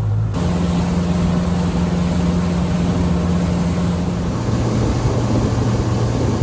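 Boat's outboard motor running steadily under way, with a rushing of wind and water over it; the engine note drops lower about four seconds in.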